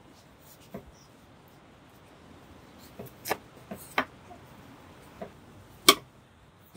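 Chef's knife slicing through geoduck clam meat and tapping down on a bamboo cutting board: about seven sharp knocks at an uneven pace, the loudest near the end.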